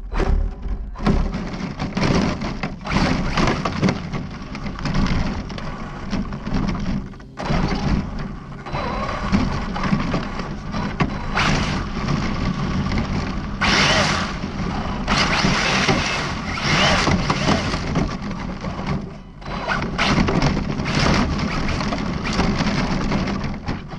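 ARRMA Felony 1/7-scale electric RC car driving over gravel and dirt, its tyres and chassis giving a loud, constant crunching and rattling of stones. The noise briefly drops away twice.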